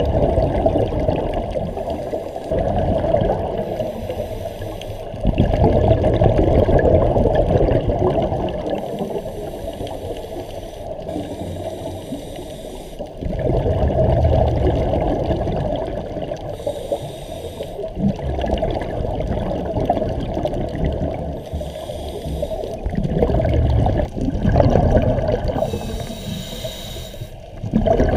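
Scuba divers breathing underwater: a rushing, bubbling regulator exhaust that surges every several seconds with each exhalation, with fainter high hisses in between.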